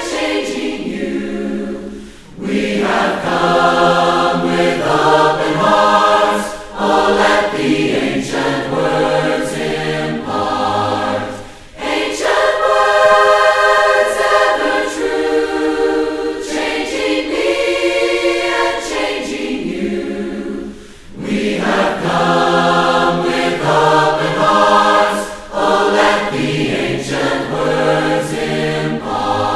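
A choir of mixed voices singing a religious song a cappella in harmony, in long phrases with brief breaks between them.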